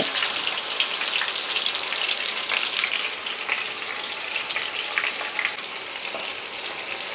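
Sliced bitter gourd rounds deep-frying in hot oil: a steady sizzling hiss with small pops and crackles, easing slightly toward the end.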